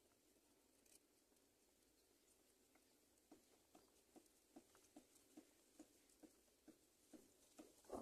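Near silence, with a run of faint soft ticks, about two a second, starting a few seconds in.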